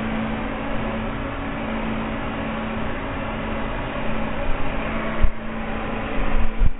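Handheld hair dryer running steadily on one setting, a rushing blow of air with a steady motor hum, aimed at a damp capuchin monkey's fur. A few low bumps near the end.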